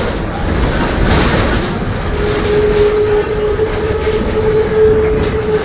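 Mercedes-Benz OF-1721 bus running with a low rumble, and a steady whine from its differential that sets in about two seconds in: the growling differential the bus is known for.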